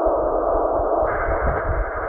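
Steady hiss of shortwave static from a Tecsun PL-990 receiver in upper-sideband mode, heard in a gap between voice transmissions. About a second in the hiss turns brighter, with an uneven low rumble beneath it.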